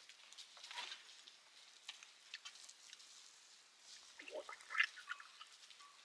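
Faint crackles and small pops from a wood fire, with a short slurp about four seconds in as a hot drink is sipped from a cup.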